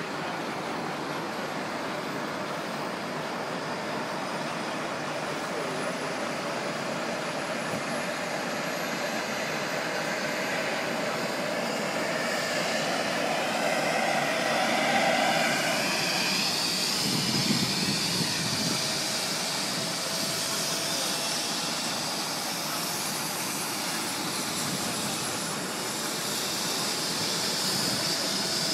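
Steady roar of idling machinery with a faint high whine gliding slowly upward, typical of a helicopter's turbine running, mixed with the engines of heavy vehicles.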